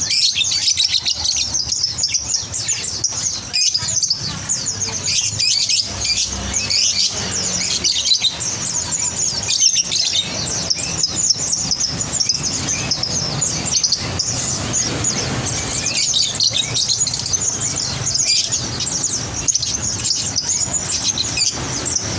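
A crowd of caged olive-backed sunbirds ('kolibri ninja') chirping nonstop, many short high calls overlapping in a dense twittering chorus. A faint low hum runs underneath.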